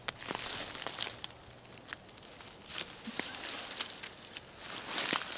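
Footsteps pushing through thick dry grass and brush: rustling swishes with scattered small snaps and clicks.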